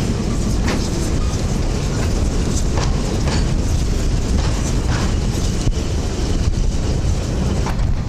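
Railway passenger coaches rolling past with a steady low rumble. Their wheels click sharply over rail joints and points, about twice a second, unevenly spaced.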